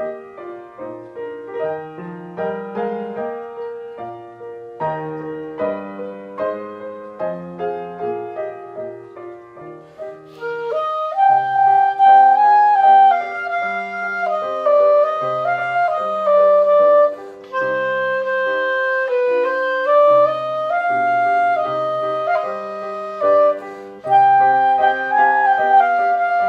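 Piano playing alone, then about ten seconds in a clarinet enters with a quick rising sweep and carries a held, singing melody over the piano accompaniment.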